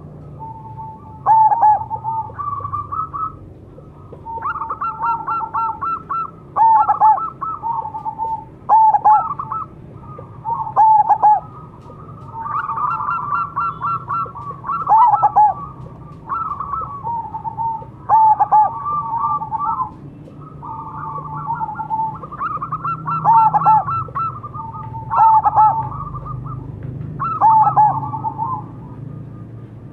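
Zebra dove (perkutut) cooing: repeated rolling phrases of quick, purring staccato notes, a loud phrase about every two seconds with softer trilling between.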